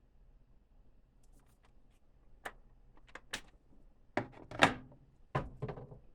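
Steel impact sockets and their case being handled: a series of sharp clicks and knocks, irregularly spaced, the loudest about four and a half seconds in.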